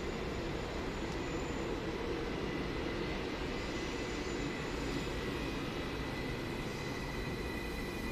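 Electric commuter train running along the tracks at a station: a steady rumble with a thin, high whine running through it.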